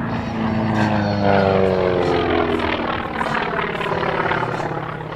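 A North American T-28 Trojan's radial engine and propeller, passing close and pulling up into a climb. The engine note falls in pitch over the first few seconds and is loudest about a second in.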